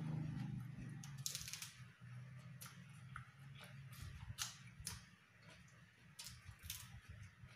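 A person chewing food eaten by hand, raw lettuce among it, close to the microphone: irregular wet mouth clicks and crisp crunches. A low hum fades out about a second in.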